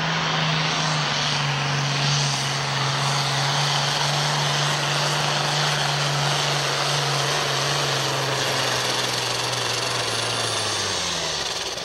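Pulling tractor's engine held at full throttle as it hauls the sled down the track: a loud, steady drone that sags slightly in pitch and drops away near the end as the throttle comes off.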